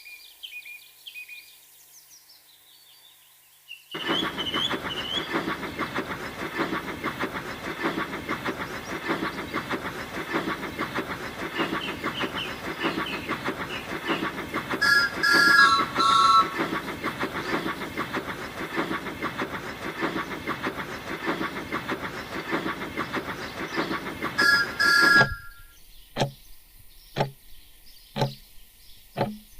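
Brief bird chirps, then a steam locomotive running with a fast, steady clatter of chuffs and wheels, its whistle sounding twice with a falling tone. About 25 seconds in the train sound cuts off suddenly and a handful of sharp knocks follow.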